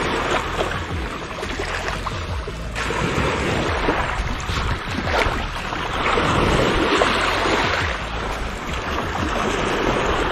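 Small waves washing against shoreline rocks, with wind buffeting the microphone. The wash swells louder about six seconds in, and a few short clicks come through over it.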